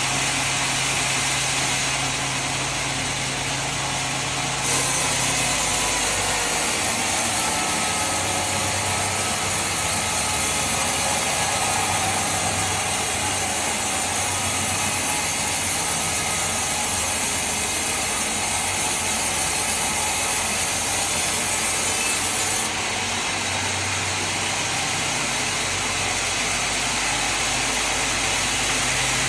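Sawmill machinery running steadily, with a saw cutting wood. The sound turns brighter and slightly louder about five seconds in and drops back about six seconds before the end.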